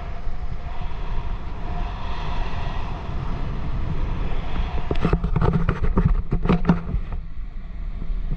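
Wind buffeting the microphone in a heavy, uneven low rumble during parasailing. From about five to seven seconds in, a quick run of knocks and crackles rises over it.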